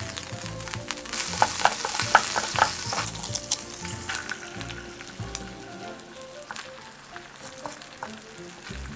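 Food sizzling in hot oil in a frying pan, with a cluster of sharp clicks about one and a half to two and a half seconds in. The sizzle thins out over the second half.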